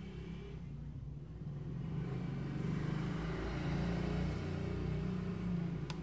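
Motor vehicle engine rumble that grows louder over the first two seconds and then holds, with a single sharp click near the end.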